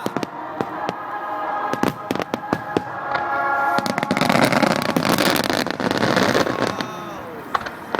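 Fireworks display: a rapid string of sharp bangs and cracks, then a dense, louder crackling rush of many small bursts from about four seconds in that fades out near the end, with a few falling whistling tones.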